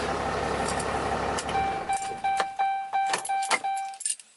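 Cummins 6.7-litre straight-six turbodiesel in a 2010 Ram 2500 idling in the cab, then shut off about a second and a half in. As it dies away, the truck's dashboard warning chime sounds as a quick series of beeps until near the end.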